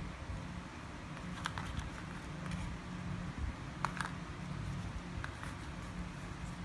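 Scattered light clicks and taps, the sharpest about four seconds in, over a low steady hum.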